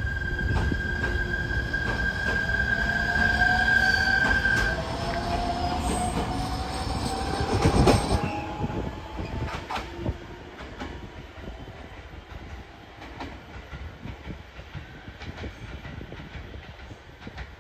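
Electric train pulling away from a station: the motor whine rises in pitch as it speeds up, with a high steady tone over the first few seconds and wheels clicking over rail joints. It is loudest about eight seconds in, then fades as the train moves off.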